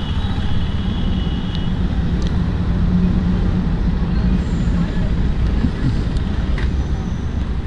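Motorcycle single-cylinder engine running at low speed as the bike creeps through street traffic, a steady low rumble with surrounding traffic noise.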